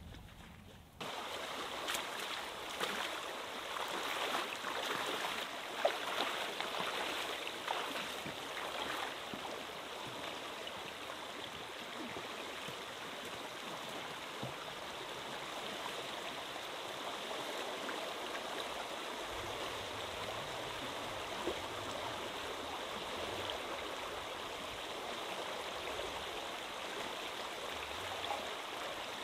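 Flooded stream running steadily, swollen with spring snowmelt; it starts abruptly about a second in.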